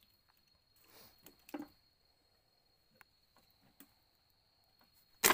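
Quiet scene with a steady, thin, high insect drone, broken by a few soft knocks and a sharp knock near the end.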